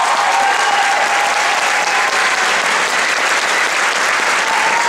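Theatre audience applauding loudly and steadily at the end of a musical number, with a few voices cheering above the clapping.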